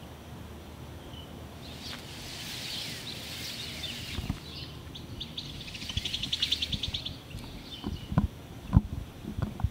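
Outdoor night ambience of high chirping that runs into a fast trill, followed near the end by a person's footsteps, a few firm steps about half a second apart.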